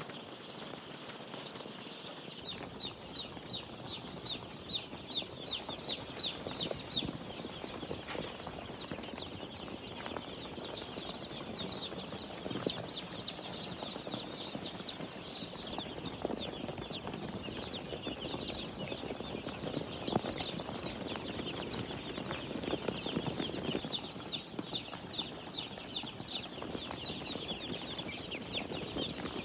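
A flock of chicks peeping continuously in quick, high, short chirps, many overlapping at once.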